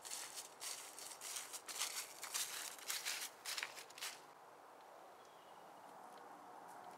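Footsteps on dry leaves and grass, an uneven run of steps that stops about four seconds in, leaving a faint outdoor hush.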